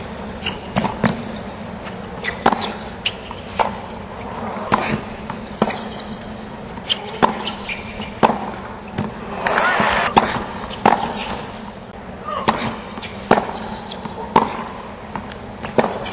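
Tennis rally on a hard court: a tennis ball struck by rackets and bouncing, sharp pocks roughly a second apart through several points. A brief swell of crowd noise rises about ten seconds in.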